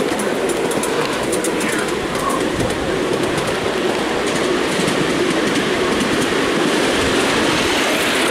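Miniature railway train under way with passengers aboard: a steady running rumble from the miniature BR class 37 locomotive and its carriages, with light, irregular ticking of the wheels on the track.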